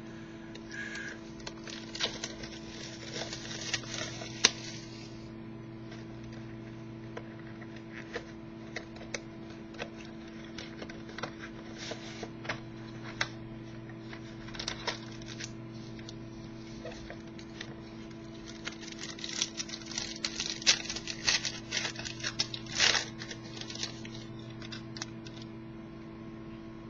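2011-12 Panini Limited hockey card box and pack being opened and the cards handled: scattered clicks, taps and rustles of cardboard and wrapper, busiest about twenty seconds in, over a steady electrical hum.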